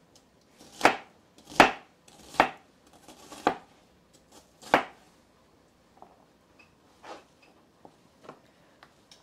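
Kitchen knife chopping onion on a plastic cutting board: separate, unhurried chops about a second apart, the loudest in the first five seconds and lighter taps after.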